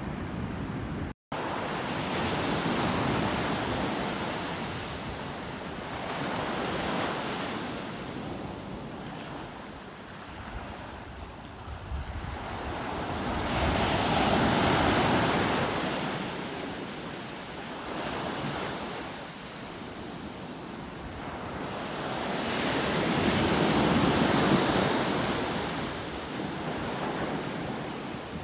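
Sea surf breaking on a beach: a steady wash of noise that swells and recedes in slow surges every several seconds. A split-second gap about a second in breaks it briefly.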